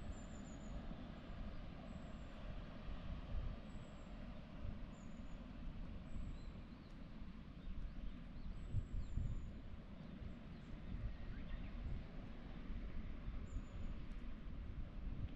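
Outdoor ambience: an uneven low rumble of wind buffeting the microphone, with faint, brief, high thin bird calls every second or so.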